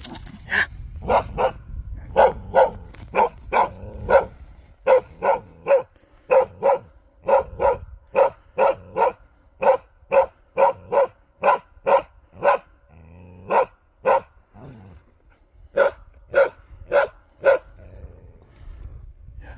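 Karelian bear dog bay-barking in a long, steady run of short barks, about two to three a second, with brief breaks past the middle and a pause near the end. This is the barking a moose dog gives when holding a moose at bay, here at a moose decoy.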